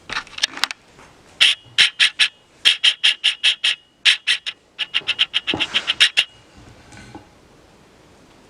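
Quick runs of light metal-on-metal taps, about five a second, each with a short bright ring. They come in several bursts in the first two thirds and then stop.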